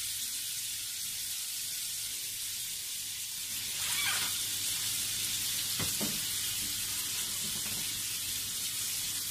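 Bacon sizzling as it browns in hot oil in a frying pan, a steady hiss, with a couple of light knocks about six seconds in.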